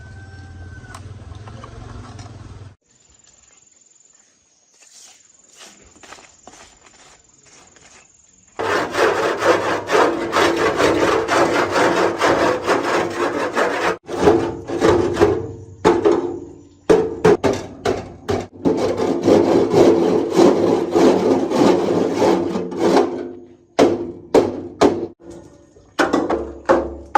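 Rapid back-and-forth rasping strokes of a hand abrasive tool, like filing or sanding, on a workpiece. The strokes run dense for long stretches with short pauses, then come slower and one by one near the end.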